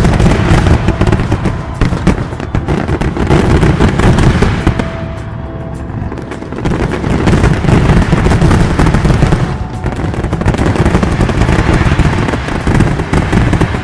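Fireworks display: rapid, overlapping shell bursts and crackle in a sustained barrage, easing briefly about five seconds in and again near ten seconds.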